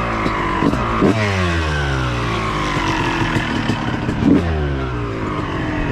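Two-stroke motocross bike engines revving. A sharp burst of throttle about a second in and another about four seconds in, each followed by a long fall in pitch as the revs drop away.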